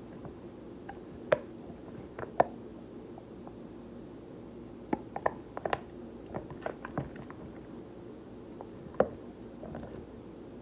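Sticky slime being mixed by hand in a cup: irregular wet squelches and sharp little pops, a few at a time, with a busier run of them about halfway through.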